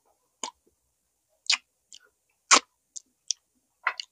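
Close-up mouth sounds of someone eating barbecued pork ribs: about eight irregular, sharp clicks and smacks of chewing and biting, a few of them drawn out.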